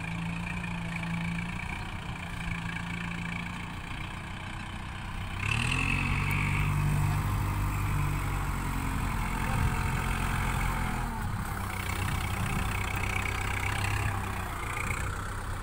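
Kubota MU4501 tractor's four-cylinder diesel engine running as it works a plough, revving up and getting louder about five seconds in, then easing back about eleven seconds in.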